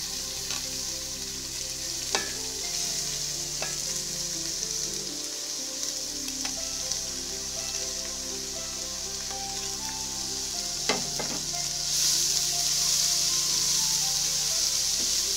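Chopped onion, carrot and beans frying in hot coconut oil in an aluminium pan as they are tipped in and stirred: a steady sizzle with a few sharp clicks, growing louder about twelve seconds in.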